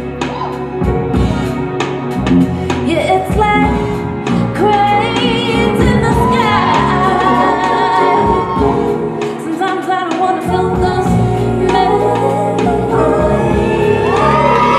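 Music with singing: a voice holding long, wavering notes over a beat, with sharp drum-like hits in the first few seconds.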